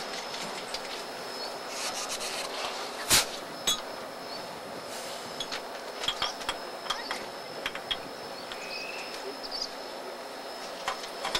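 Scattered metallic clinks and clicks from hands working at the coupler and brake hoses between the C58 363 steam locomotive and a coach just after coupling. There is one sharp clank about three seconds in, over a faint steady high whine.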